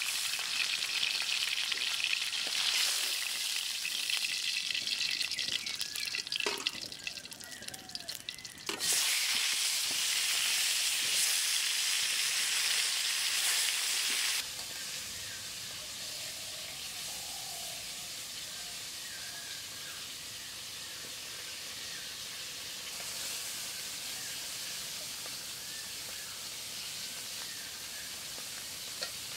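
Carp pieces frying in hot oil in an iron wok: a loud, steady sizzle, broken by a few knocks of a slotted spoon against the pan around the middle of the first half. About halfway through, the sizzle drops suddenly to a quieter, steady hiss.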